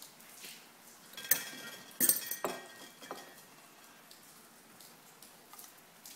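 A few sharp clinks and rattles with a brief metallic ring, about one to two and a half seconds in, against a low background.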